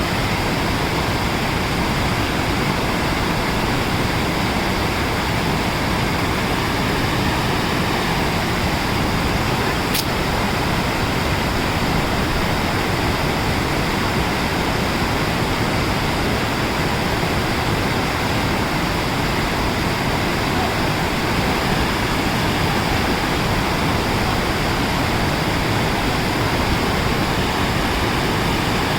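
A fast mountain stream rushing over rocks, a loud steady rush of water that does not change, with one brief click about ten seconds in.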